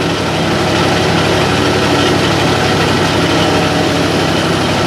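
Meatball dough mixer (fine cutter) machine running, a loud, steady mechanical drone.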